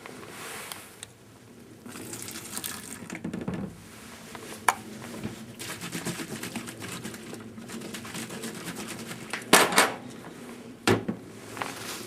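Metallic clinks and clatter, irregular throughout, with a few sharp, louder knocks in the second half.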